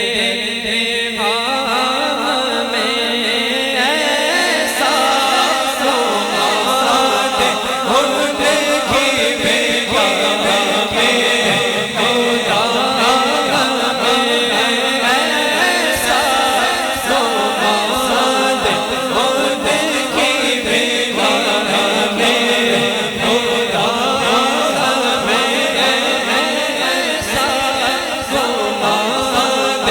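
Unaccompanied vocal chanting for a naat, sung steadily with no instruments.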